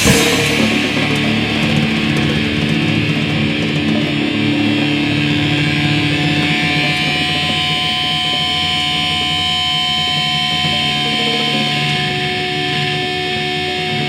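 Live heavy rock band music, led by distorted electric guitar. After a hit right at the start the cymbal wash dies away, and held guitar notes ring on, joined about halfway through by a steady high tone.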